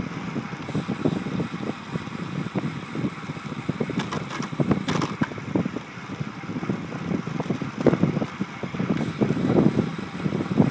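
Wind buffeting the microphone of a camera carried on a moving bicycle, an uneven low rumble that gusts up and down. A few sharp clicks come about four to five seconds in.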